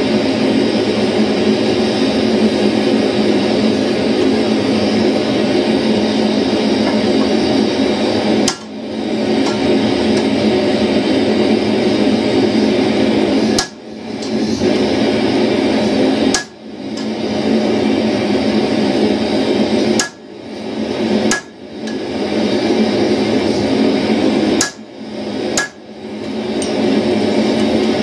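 Single heavy hammer blows on a top tool (set hammer or punch) held on red-hot steel on an anvil while forging tongs: about seven sharp strikes at irregular intervals, starting about a third of the way in, over a loud steady rushing noise.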